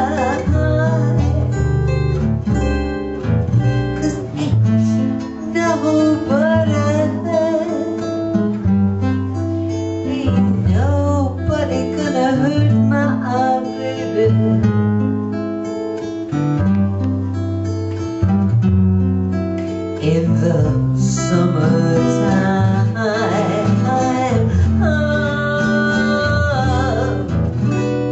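A song: strummed acoustic guitar accompanying a singing voice, with the vocal lines coming and going over a steady accompaniment.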